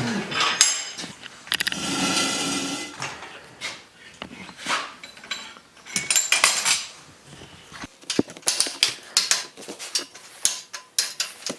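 Forged steel pieces and tools clinking and clanking as they are handled and knocked together, with a short stretch of metallic ringing about two seconds in and a quick run of clinks near the end.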